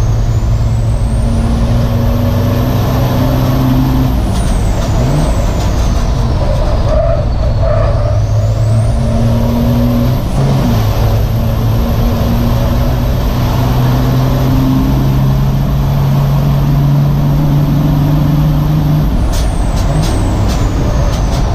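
In-cab onboard sound of a VW Constellation Copa Truck race truck at speed: its diesel engine running hard, the engine note dropping and picking up again several times, with a high whistle that rises and falls.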